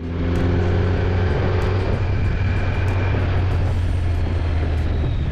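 Kawasaki Z900 inline-four engine running at a steady cruise, with wind noise from riding.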